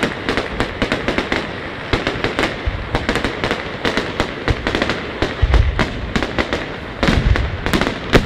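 Fireworks display: a dense, rapid crackle of many small bursts, with deeper booms of shell bursts about five and a half and seven seconds in.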